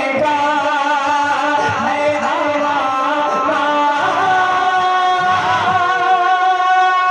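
Melodic music of a naat performance: a wordless line of long, wavering held notes with a steady undertone beneath, loud and unbroken.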